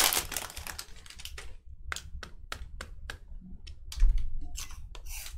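Foil trading-card pack crinkling as it is torn open, then a run of sharp clicks as the Panini Prizm football cards are flicked through one by one, with a soft knock about four seconds in.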